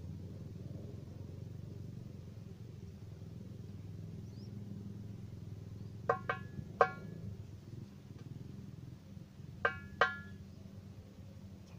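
Wind rumble on the microphone, with a few sharp, ringing darbuka strikes: three in quick succession about six seconds in, and two more near the end.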